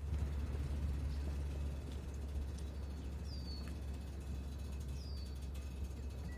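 Steady low outdoor background rumble with a bird chirping twice, two short falling chirps about a second and a half apart.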